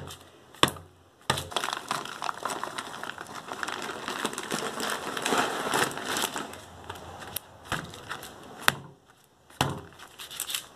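Potting soil being added to a cut-down cardboard milk carton, with a continuous crinkly crackling of soil and packaging being handled. There are a few sharp knocks near the start and the end.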